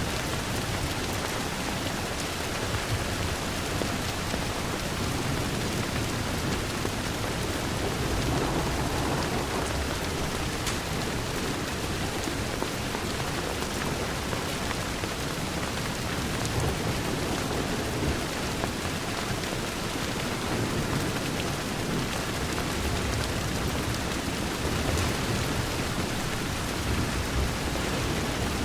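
Steady rain falling on a window: an even, dense hiss with a low rumble underneath that swells and fades.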